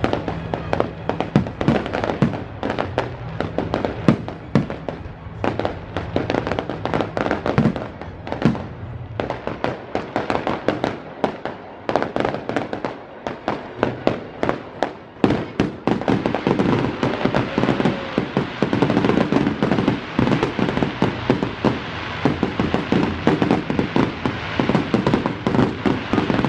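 Fireworks display: a rapid run of bangs and crackles from bursting shells, turning into a denser, continuous crackle about sixteen seconds in.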